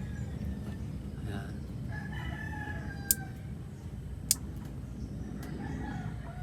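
A rooster crowing twice in the background, each crow falling in pitch. Two sharp clicks sound between the crows.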